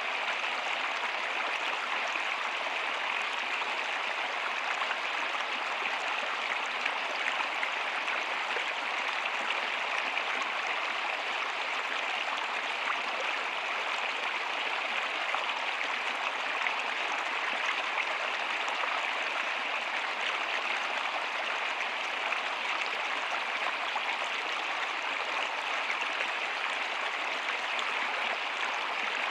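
Steady rainfall: an even, unbroken hiss of falling water that holds the same level throughout.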